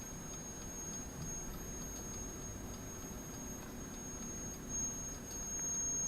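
Sanyo STD-1410 cassette deck running with a faint, even ticking, about two to three ticks a second, over a steady high whine. The owner takes it for the deck's motor having developed a squeak.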